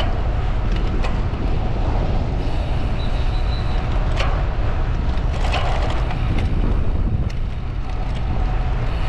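Steady wind rumble on the microphone while riding a bicycle at speed, mixed with tyre and road noise, with a few short clicks and knocks about halfway through.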